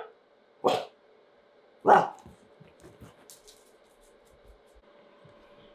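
French bulldog barking twice, the second bark about a second after the first and louder, followed by a few faint knocks.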